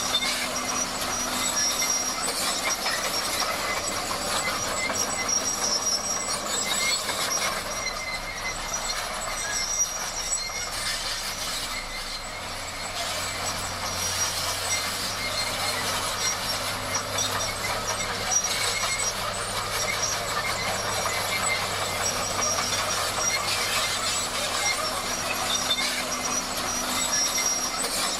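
Crawler bulldozer at work: a steady diesel drone under continuous metallic clanking and squealing from its steel tracks.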